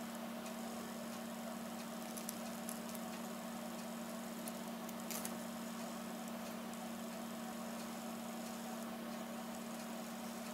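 Faint clicks and scratches of an X-Acto hobby knife blade working at cracked iPad 2 glass, a few at a time, over a steady low hum.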